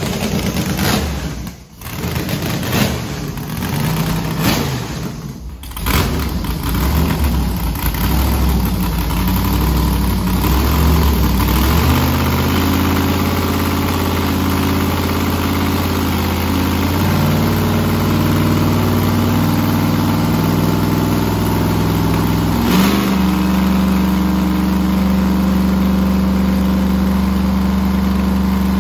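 The burnout truck's 408 stroker V8 running steadily on a chassis dyno, holding one speed and then moving to a new steady note a few times, the last change with a sharp click about 23 seconds in.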